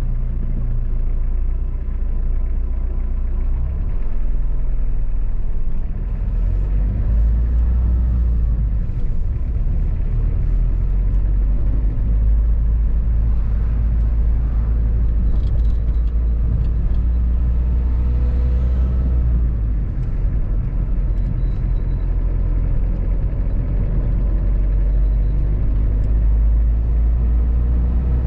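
Car driving at low speed, heard from inside the cabin: a steady low rumble of engine and tyres on the road that swells and eases a little as the car slows and moves off again.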